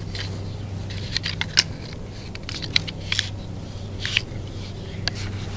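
Short clicks and light scrapes of a crossbow being handled, in small clusters a second or so apart, over a steady low hum.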